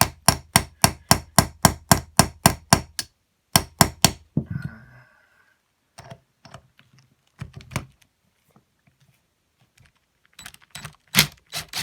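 Quick run of sharp metallic knocks, about four a second for a few seconds, then short groups of further knocks, as an impact tool is used to break loose gummy, stuck star-head screws on a two-stroke cylinder head.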